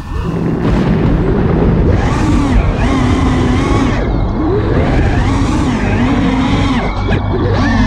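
FPV racing quadcopter's brushless motors whining, the pitch rising and falling with the throttle, over rushing air from the props and wind.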